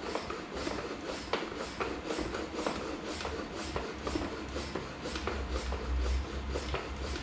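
Floor pump with a gauge being worked by hand, inflating a bicycle inner tube, each stroke a short hiss of air, about three strokes every two seconds. The tube is being pumped up toward 80 psi.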